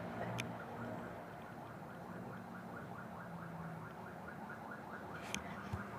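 Ambulance siren in a fast yelp pattern, faint: quick rising sweeps repeating several times a second, growing clearer after about a second.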